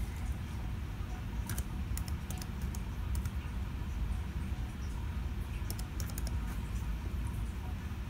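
Laptop keyboard typing: short runs of separate keystrokes, one about a second and a half in and another around six seconds in, over a steady low hum.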